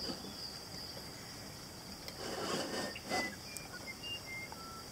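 Faint handling sounds of a plastic desk globe being turned by hand on its stand, with a soft rubbing swish a little over two seconds in. A steady high-pitched hiss runs underneath.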